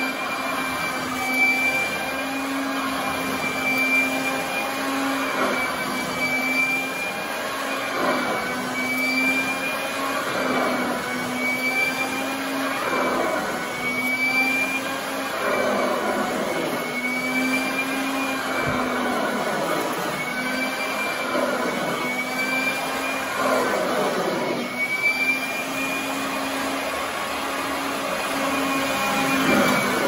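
Royal commercial upright vacuum running on carpet: a steady motor hum and whine, with the pitch sliding up and down every couple of seconds as it is pushed and pulled. The shifts in its note come as the strong suction pulls the worn, loose carpet up against the base of the vacuum.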